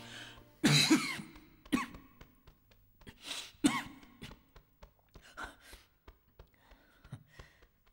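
A person coughing and clearing their throat in several separate bursts, the loudest about a second in, with fainter ones toward the end.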